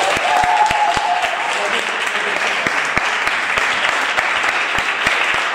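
Audience applauding steadily for an award winner, with a voice calling out over the clapping in the first second.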